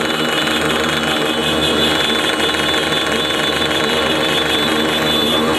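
A group of small street and trail motorcycles running together at idle, their engines blending into one dense, steady rattle.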